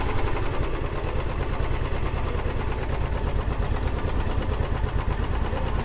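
Royal Enfield Classic 350's single-cylinder engine idling steadily with an even, regular beat, just after starting, with a cylinder-head cap off. The engine is in for a harsh engine-noise complaint.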